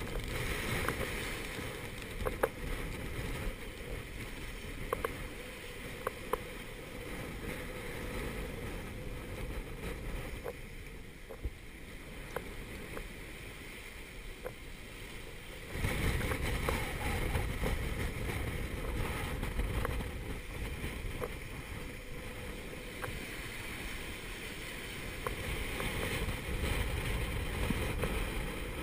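Force 7 gale wind and breaking seas rushing around a small sailboat's stern as it runs downwind, with a few sharp ticks scattered through. About 16 seconds in, the rushing grows markedly louder and deeper, as a gust or breaking sea passes.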